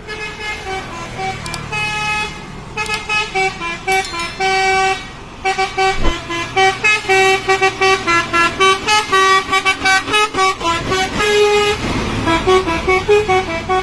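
Bus 'telolet' horn: a set of multi-tone air horns playing a quick melody of short stepped notes. The blasts come faster and choppier in the middle.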